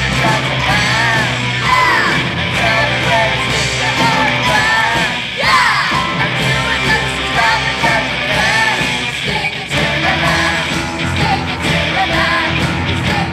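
Live rock band of electric guitars, drums and keyboard playing loudly, with a chorus singing and shouting over it.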